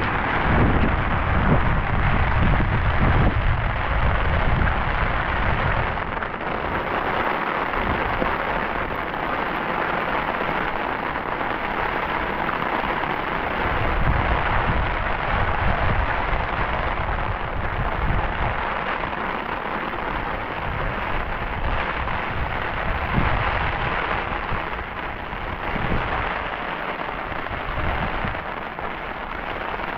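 Heavy rain falling steadily, with low rumbling swells near the start and again about halfway through.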